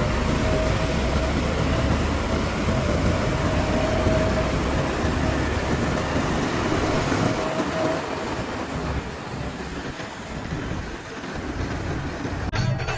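Loud, steady mechanical rumble of a heavy machine with a faint steady whine. It dies down after about eight seconds. Music cuts in just before the end.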